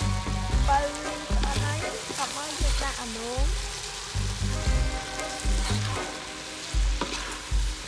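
Corn frying and sizzling in a pan while it is stirred, over background music with a steady low beat about every second and a quarter.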